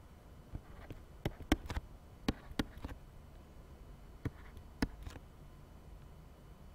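Sharp taps and clicks of a stylus on a tablet as numbers are handwritten: about ten clicks, most in the first three seconds and a few more around four to five seconds in, over a faint low hum.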